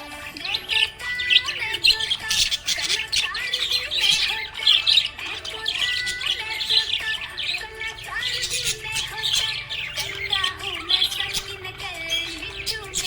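Budgerigars chirping and squawking in a continuous, busy chatter of quick high calls.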